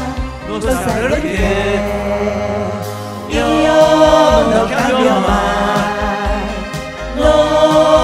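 Karaoke singing: amateur voices sing into microphones over a pop backing track.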